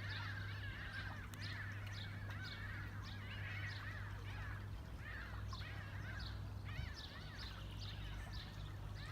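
A flock of birds calling in flight, many short calls overlapping continuously, over a steady low hum.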